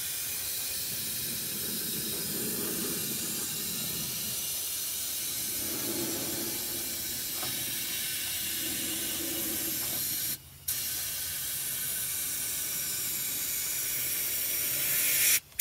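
Compressed-air undercoating spray gun hissing steadily as it sprays rust proofer through a long flexible wand inside a rocker panel. The hiss cuts out for a moment about ten seconds in, then runs on and stops near the end.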